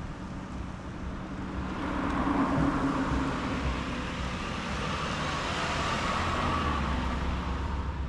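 A car driving past on the street: its tyre and engine noise swells about two seconds in and holds for several seconds over a steady background of street noise.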